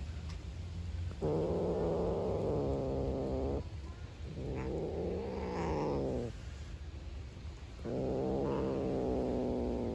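Black cat growling over its food: three long, low growls of about two seconds each, the middle one rising and falling in pitch. The cat is warning another cat off the food it is guarding.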